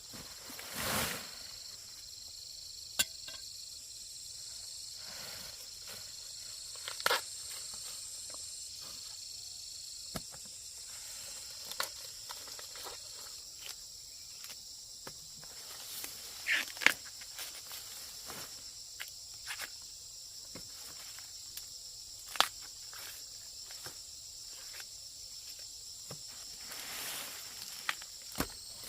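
Steady high-pitched insect chorus, with scattered sharp snaps and short rustles over it.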